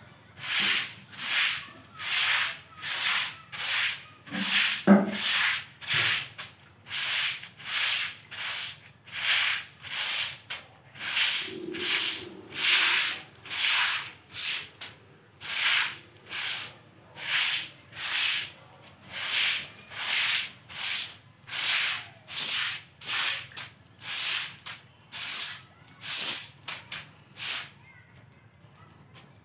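A short stiff broom made of a bundle of thin sticks sweeps a courtyard that has just been doused with water, in steady rhythmic strokes of about three every two seconds. A dull knock comes about five seconds in, and the strokes stop near the end.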